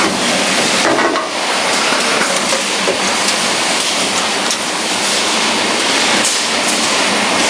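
Semi-automatic welding machine at work: a loud, steady hiss with scattered crackles and clicks.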